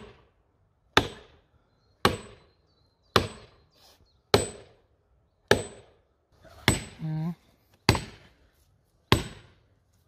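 Sledgehammer driving metal felling wedges into the back cut of a large oak: eight steady blows about a second apart, each a sharp clang with a short ring. A brief voice sound comes about seven seconds in.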